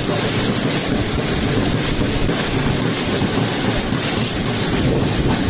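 Steady, loud rushing noise with no clear rhythm or tune, like wind buffeting the microphone of an outdoor recording.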